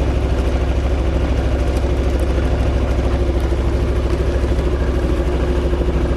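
A sailing yacht's engine running steadily as the boat motors along, a low, even throb.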